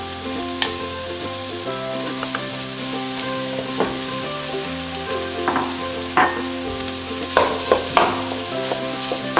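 Chicken, egg and rice being stir-fried in a pan, with a steady sizzle. A spatula scrapes and clinks against the pan, more often in the second half.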